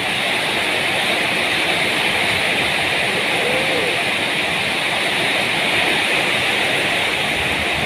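Heavy rain falling steadily in a storm with strong wind.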